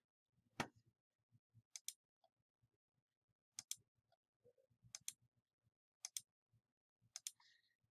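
Computer mouse button clicking: a single click, then five quick press-and-release pairs spaced a second or two apart.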